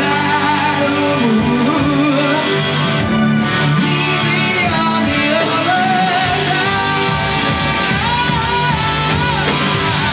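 Live rock band playing loudly: electric guitar and bass over a drum kit with cymbals, a wavering lead line bending in pitch above the band.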